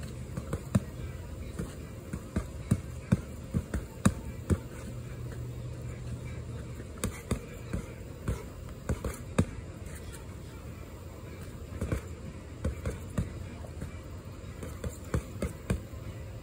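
Boxing gloves punching a padded strike pad strapped to a tree trunk: sharp thuds in quick combinations of several punches, with short pauses between the bursts.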